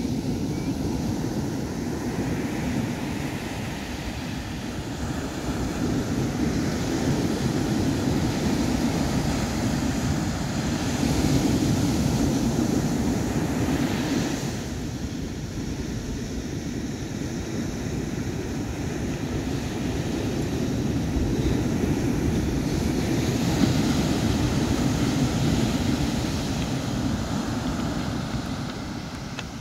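Ocean surf breaking and washing up a sandy beach, with wind buffeting the microphone. The rush swells and eases as the waves come in.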